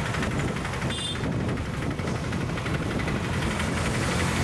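Small three-wheeler's engine running steadily with a fast, even pulsing rumble as it drives past towing a large trailer. The engine hum grows stronger near the end as it comes closer.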